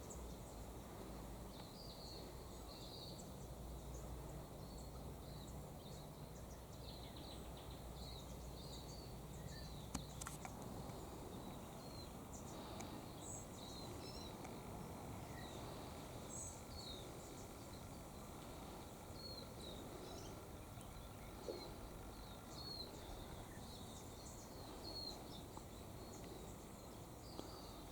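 Quiet garden ambience: a steady low background noise with faint, scattered high chirps of small birds, and a couple of soft clicks.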